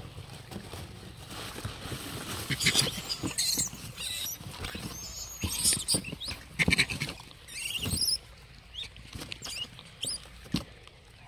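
A cardboard box of apples rustling and knocking as gray langurs and a person reach in and handle the fruit: scattered short rustles and knocks, with a few short high chirps in the second half.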